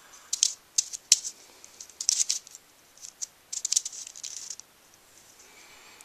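Plastic pieces of a VeryPuzzle Snow Mystery twisty puzzle clicking and scraping as its layers are turned by hand, in short irregular bursts that die away after about four and a half seconds.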